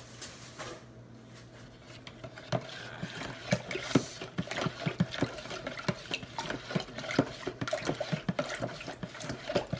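Liquid being stirred in a plastic pitcher with a utensil, sloshing, with many irregular knocks of the utensil against the pitcher's sides starting about two and a half seconds in.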